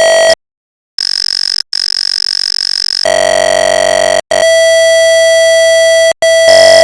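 A series of loud, held electronic tones, each from under a second to about a second and a half long, separated by brief breaks. The pitch switches between a high tone and a lower one.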